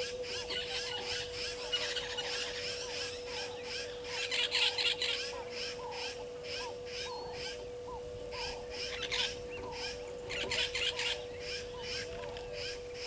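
Bush ambience of birds and insects. One bird repeats short down-slurred whistled notes about twice a second, with busier bursts of birdsong twice. Under it runs a rhythmic pulsing insect chorus and a steady faint hum.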